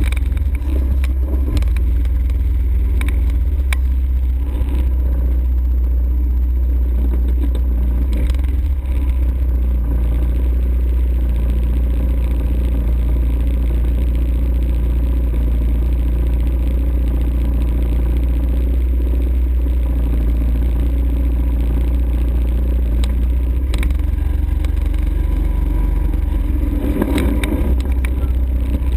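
ATV engine running steadily while riding, a constant low rumble with occasional knocks and rattles.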